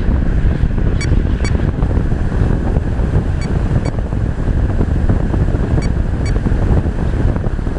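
Steady loud wind rushing over the camera microphone, a rumbling noise with no letup. Faint pairs of short high beeps repeat about every two and a half seconds.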